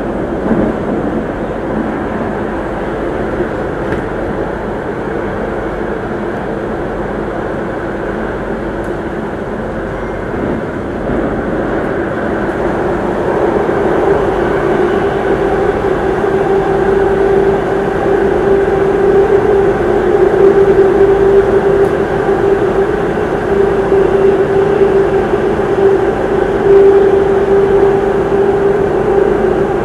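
Singapore MRT Circle Line train heard from inside the carriage while running: a steady rumble of wheels and running gear. About halfway through, a steady humming tone comes in and the noise grows louder.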